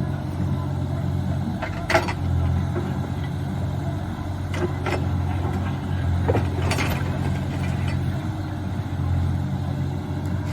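Engine of heavy excavation equipment running steadily, with a few short metallic knocks and clanks in between.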